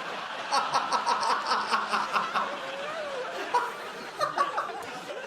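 Laughter at a punchline: a studio audience laughing, with a person's laugh in quick, rhythmic pulses over it through the first half.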